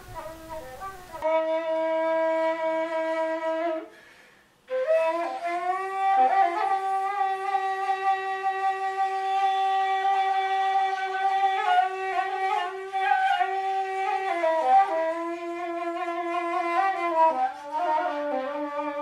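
Solo woodwind instrument playing a slow melody of long held notes with small bends and ornaments, pausing briefly about four seconds in; a hiss sounds during the first second.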